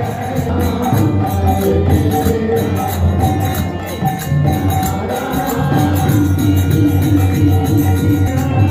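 Kirtan music with harmonium, khol drum and kartal hand cymbals playing together in a steady devotional rhythm. The khol's deep strokes repeat under the harmonium's held chords, and the cymbals jingle continuously, with chanting voices in the mix.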